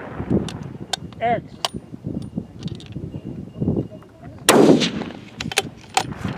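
Rifle shots from F-Class target rifles on the firing line. The loudest report, with a long echo, comes about four and a half seconds in; fainter cracks from other rifles come before and after it.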